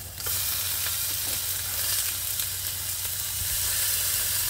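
Beef steaks sizzling on a hot grill pan; the sizzle jumps louder just after the start as a steak is laid onto the pan with tongs, then holds steady.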